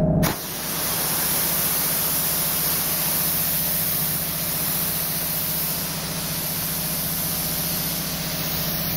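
Steady hiss of pressurised gas from a nozzle, starting sharply about a quarter second in, with a faint low hum beneath it.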